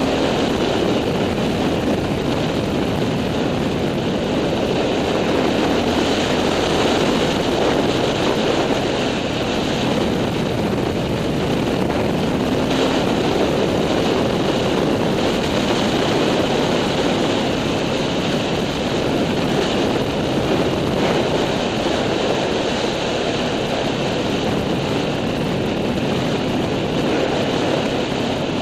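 Engine of an off-road vehicle running steadily under way on a dirt trail, mixed with dense wind and ride noise on the camera.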